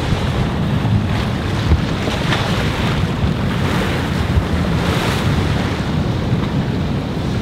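Wind buffeting the microphone in a steady low rumble, over the wash of waves around the pier.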